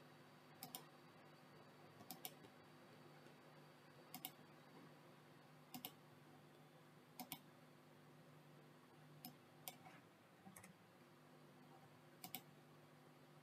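Faint clicks of a computer mouse, about nine spaced a second or two apart, several of them in quick pairs, over a faint steady hum.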